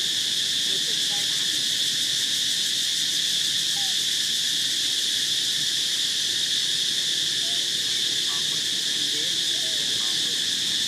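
Steady, high-pitched drone of insects, with a few faint short chirps now and then.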